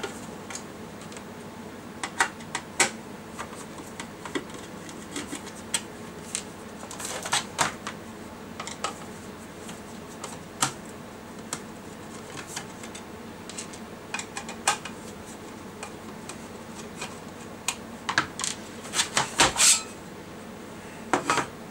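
Screws being taken out of the sheet-metal case of a CTVR-4 power supply: scattered small clicks and taps of screwdriver and screws on metal. A busier run of clicks and knocks comes near the end as the cover comes off.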